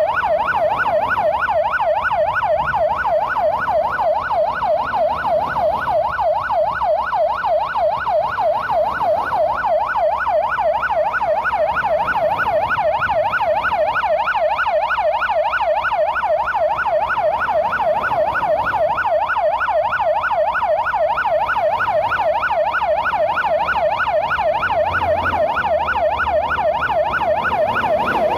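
Police car siren on a fast yelp: a rapid rising-and-falling wail, several sweeps a second, sounding steadily without change.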